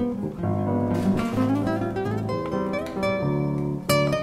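Background music on acoustic guitar: plucked notes and chords, with a sharp strummed chord near the end.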